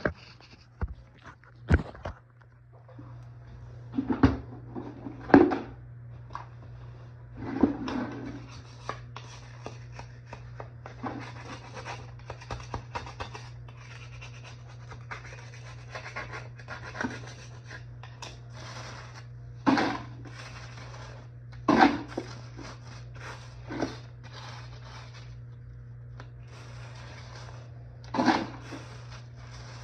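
Irregular knocks, clunks and rubbing scrapes of objects being handled, over a steady low hum.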